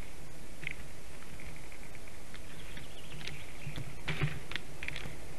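Faint, short bird chirps over a steady low hum, with a brief rustle and clicking of nest twigs about four seconds in.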